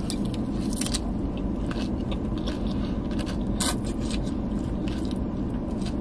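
Close-up crunching and chewing of a mouthful of lettuce salad, a quick run of crisp bites and crunches, over a steady low rumble inside the car.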